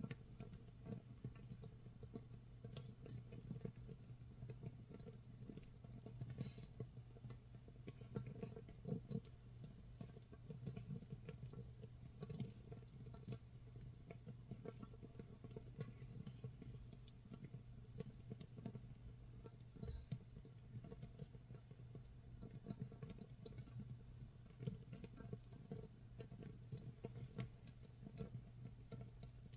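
Makgeolli starter mash (mitsul) fermenting in a crock 24 hours in: countless tiny bubbles popping in a faint, irregular crackle, like light rain or rice crust toasting in a pan. A steady low hum sits underneath.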